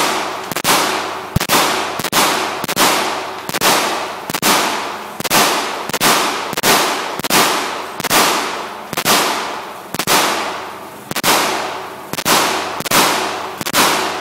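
FN Five-seveN pistol firing 5.7×28mm rounds in a fast, steady string of shots, about one and a half a second, each with a ringing echo from the indoor range.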